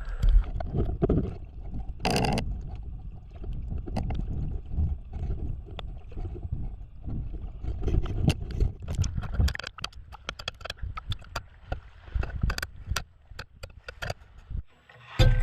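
Water splashing and sloshing, with irregular knocks and clicks over a low rumble.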